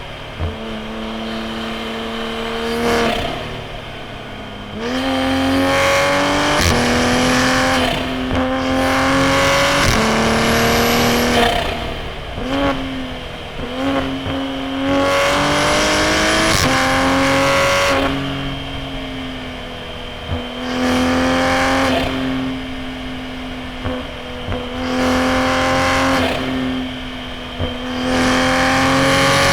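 Turbocharged B58 inline-six of an A90 Supra with a straight-piped titanium single-exit exhaust, pulling hard through the gears and lifting off between corners. The engine note climbs and drops sharply over and over, with a few short sharp cracks.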